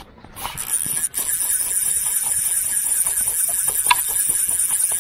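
Close water noise: a steady rushing hiss full of irregular small splashes, close to the microphone, beside a freshly netted white-spotted char.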